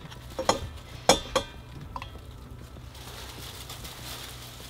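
Ceramic coffee dripper and cup clinking: four light knocks in the first two seconds, some with a short ring. A soft, steady hiss follows from about three seconds in.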